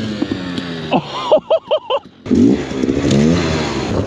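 Dirt bike engine running, its revs falling. About a second in, a few short high-pitched vocal sounds. Then the engine revs up and down again.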